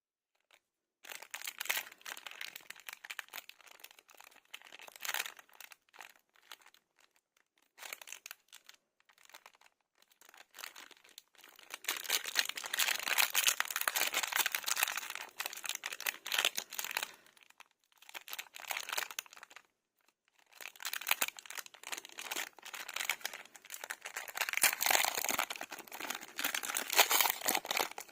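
Lollipop wrappers and packaging crinkling and tearing, in dense crackly bursts with short pauses between handlings.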